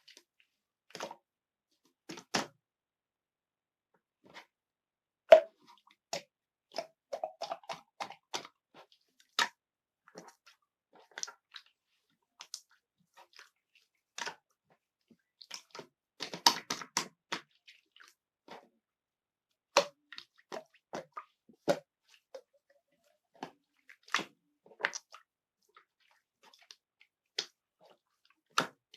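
Slime being squeezed and poked by hand, making scattered sticky clicks and wet pops, with a busier run of pops a little past halfway.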